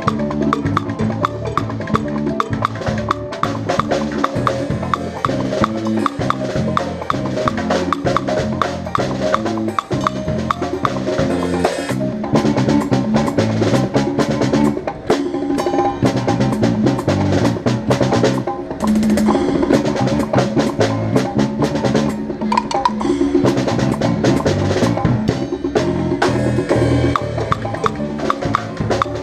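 Music with busy drum percussion: many quick strikes over a line of low notes that step from pitch to pitch.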